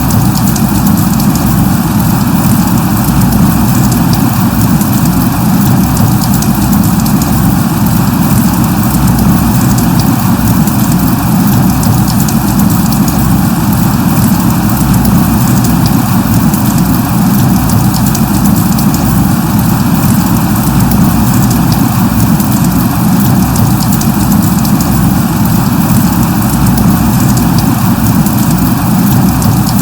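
Steady light rain falling, an unbroken rushing noise heaviest in the low range, with faint scattered drop ticks.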